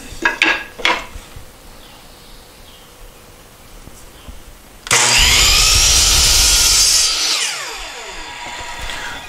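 A couple of light knocks as a wooden board is set against the saw fence. Then, about five seconds in, a DeWalt miter saw starts up loud and crosscuts a 1x3 poplar board. After about two seconds it is switched off and the blade winds down in a falling whine.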